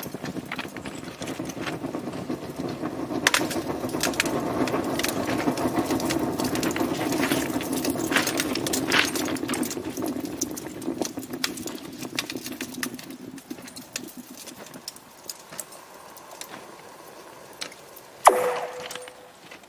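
Thermite charge burning in a rail-welding crucible: a dense rushing hiss peppered with crackles and pops that fades away over the second half. Near the end comes a sudden loud burst.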